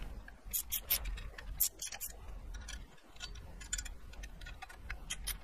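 Hand ratchet clicking in short irregular runs as it tightens the bolts of a steel dead-pedal bracket.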